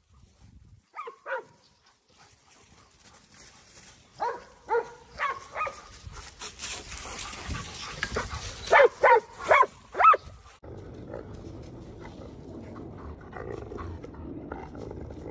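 Giant schnauzer barking in short bursts: two barks about a second in, four more a few seconds later, then four louder barks around nine seconds in. After that only a low, steady background noise remains.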